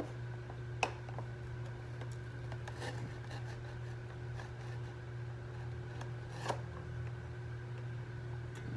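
Action-figure blister packaging being handled and picked at, giving a few sharp plastic clicks and faint rustles over a steady low room hum.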